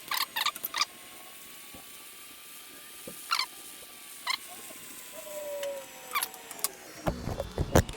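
TIG welding arc on copper: a steady hiss with a faint, slowly wavering whine, broken by short sharp crackles in several clusters. Louder knocks and rumbling come in the last second.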